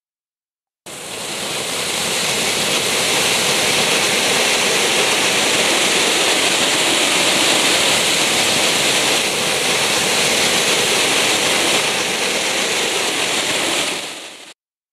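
Cone fountain firework spraying sparks: a steady, loud hiss that starts abruptly about a second in and cuts off near the end.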